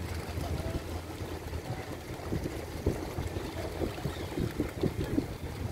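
A flock of Indian cormorants splashing and flapping across the water surface as they land and take off: a flurry of quick splashes and patters from about two seconds in, over a steady low rumble.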